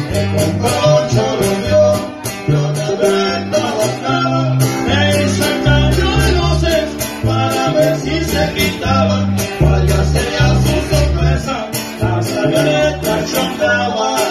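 Live regional Mexican band playing a corrido: guitars over a deep, steady bass line.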